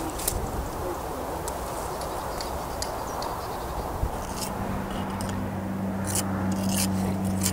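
Pointing tool scraping against the mortar joints of a brick pier as the brickwork is pointed up, in short strokes from about four seconds in, over a steady low hum. Before that, only outdoor background noise.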